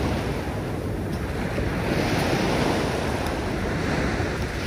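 Small waves breaking and washing up a pebbly coral-sand shore: a steady rush of surf that swells about halfway through.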